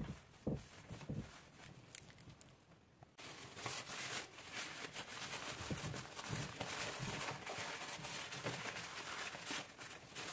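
Paper towel rustling and rubbing as a hand wipes a metal lever door handle: a dense, scratchy crinkling that starts abruptly about three seconds in. Before that there is softer cloth wiping with a few dull thumps.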